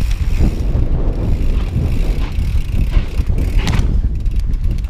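Wind buffeting the microphone in a heavy low rumble, over a full-suspension mountain bike rolling down a rocky dirt trail, with scattered clicks and rattles from the bike over bumps, the strongest near the end.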